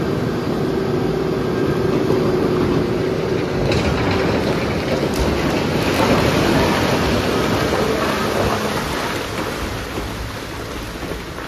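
Iron ore crushing plant at work: heavy machinery hum for the first few seconds, then a dense, continuous rumble of rock tumbling and grinding in the gyratory crusher.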